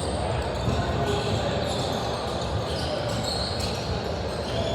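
Basketball game in a gym: a ball bouncing on the court amid a steady mix of indistinct voices echoing in the hall.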